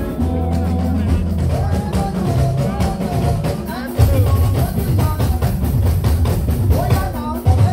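Band music with a steady drum beat, heavy bass and a singing voice, the drums and bass coming in stronger about four seconds in.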